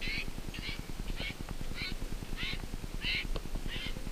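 A bird calling over and over: a short call repeated evenly, roughly one every two-thirds of a second. A low rumble runs underneath.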